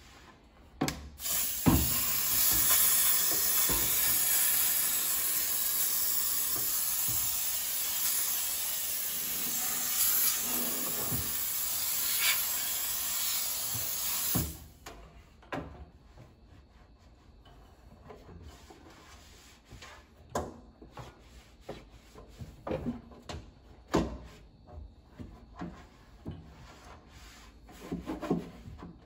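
Bissell Steam Shot handheld steam cleaner jetting steam: a loud steady hiss lasting about thirteen seconds that cuts off suddenly. After it, a cloth rubs and wipes inside a microwave, with scattered light knocks.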